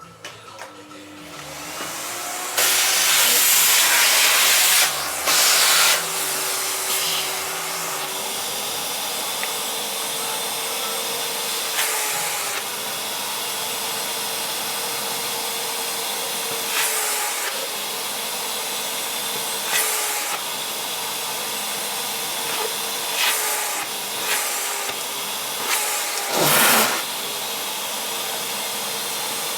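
Vacuum cleaner switched on and spinning up over the first couple of seconds, then running steadily with a held motor tone. Its rushing airflow surges louder for a few seconds early on and in several short bursts later as the suction is worked over a cat's fur.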